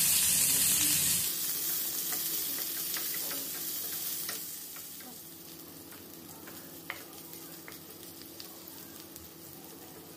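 Chopped onions frying in hot mustard oil in a steel pan: a loud sizzle that drops about a second in and keeps dying down as the onions cook. A spatula stirs them, with light scraping clicks against the pan.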